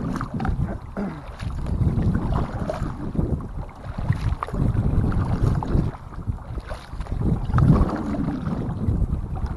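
Wind buffeting the microphone out on a kayak: a loud, uneven low rumble that swells and drops.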